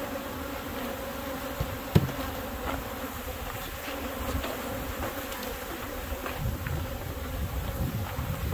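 Honey bees swarming in the air, a steady massed buzzing hum, with one sharp knock about two seconds in.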